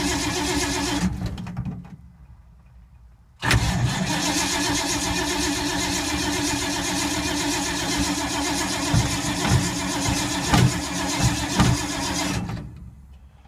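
Starter cranking the engine of a 1952 Ford that won't catch: a short crank that stops, then after a pause of about two seconds a long crank of about nine seconds with a few sharper, louder beats near its end. The engine turns over without running, which the owner puts down to flooding, then to no spark, perhaps from the points and condenser.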